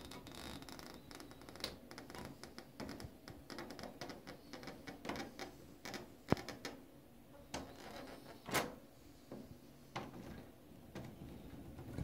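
Brass-finish doorknob being turned and handled by hand, giving irregular small clicks, rattles and scrapes, with a sharper knock a little past halfway.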